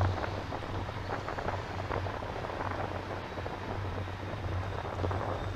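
Ride noise of a vehicle moving along a road, picked up by a camera mounted on it: a steady low hum with wind rushing and crackling over the microphone.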